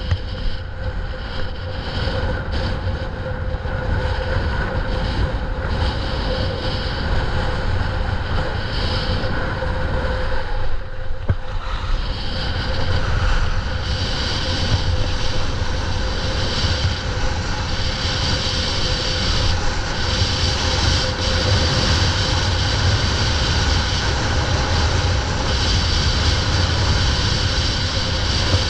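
Wind buffeting the camera's microphone during a fast downhill ski run, a steady low rumble with a high whistle over it, mixed with the hiss of skis carving the snow.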